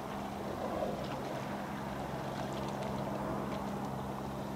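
Steady low hum of the cruise ship Nippon Maru's engines and machinery carried across the water, a constant drone with no change in pitch.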